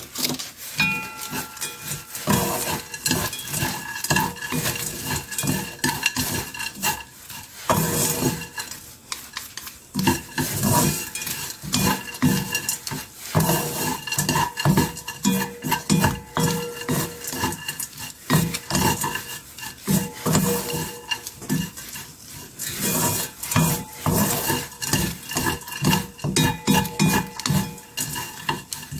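Dried anchovies being stir-fried in a soy-sauce glaze, tossed with wooden chopsticks: rapid, uneven scraping and clattering of the chopsticks against the pan and the anchovies.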